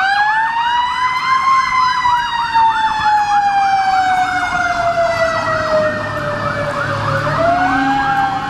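Fire engine sirens passing: a slow wail that rises, then falls over several seconds and rises again near the end, under a second siren on a fast warbling yelp of about three cycles a second. A low engine rumble joins near the end.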